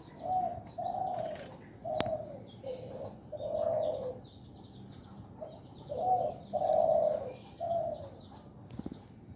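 Zebra dove (perkutut) cooing, a sign of a male in breeding condition. The coos come in two phrases of several short, low notes, with a pause of about two seconds between them. A single sharp click sounds about two seconds in.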